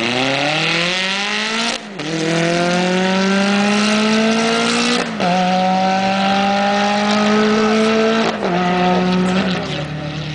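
A Ferrari F430's V8 with a Novitec Rosso exhaust and an Audi R8 accelerating hard from a standing start. The engine note climbs steadily and drops sharply with three upshifts, about 2, 5 and 8 seconds in. Near the end it drops again and fades as the cars pull away.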